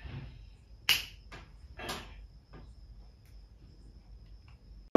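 A quiet room with a faint, steady high-pitched whine. A sharp click comes about a second in and a brief rustle about two seconds in, with a few faint ticks after.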